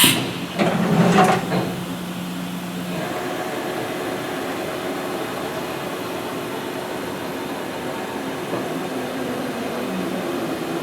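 Haas VF-2 CNC vertical mill's geared spindle running steadily at 500 RPM in low gear, a steady hum with several faint tones. A few clunks come in the first two seconds as it starts up.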